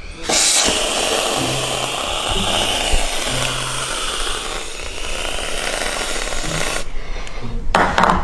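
Aerosol whipped cream can spraying onto a plate: one long, continuous hiss that runs about six and a half seconds and then stops.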